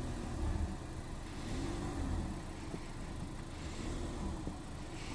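Car engines running at crawling speed as two cars creep past each other, over a steady low rumble.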